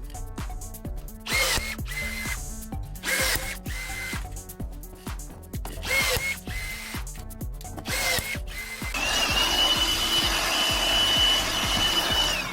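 Electric drill run in four short trigger pulls, its motor whine rising and holding briefly each time. About nine seconds in it starts a longer, steady run at a higher pitch. Background music plays throughout.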